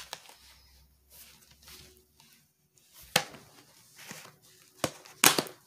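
Extendable diamond-painting storage tube being handled and opened: soft scraping and rustling, a sharp knock about three seconds in, and two more near the end, the last the loudest.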